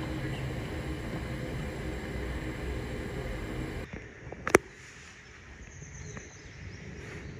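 A steady low mechanical hum with a rumble under it, which cuts off about four seconds in. Quieter background follows, and a single sharp click comes about half a second later.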